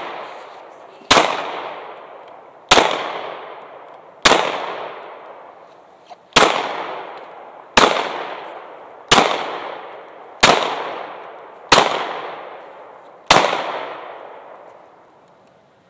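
Glock 26 9mm subcompact pistol fired nine times in slow, deliberate succession, roughly one shot every one and a half seconds. Each sharp crack trails off in a long fading echo.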